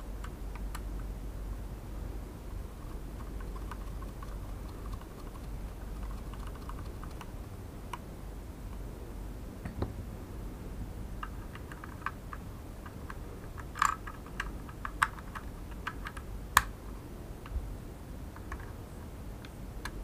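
Small sharp clicks and taps of a precision screwdriver and small tools against the plastic casing of a DJI Mavic Air remote controller during reassembly, sparse at first, then a denser run of clicks in the second half.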